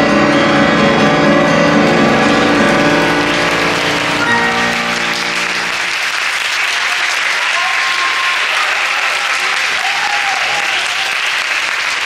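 Grand piano playing its last chords, which ring and die away about five seconds in, as the audience breaks into steady applause that carries on after the piano stops.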